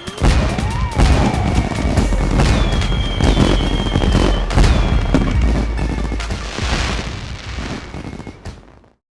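Fireworks going off in a rapid series of bangs and booms, with whistling tones and music laid over them. The sound fades and cuts off suddenly near the end.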